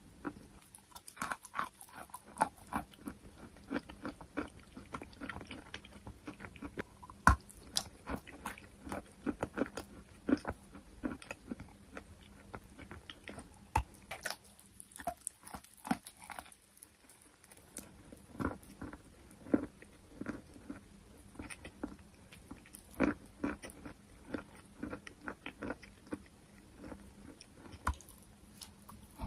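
A person biting and chewing sweet chalk, a steady run of short, crisp crunches and crackles, easing off briefly about halfway through.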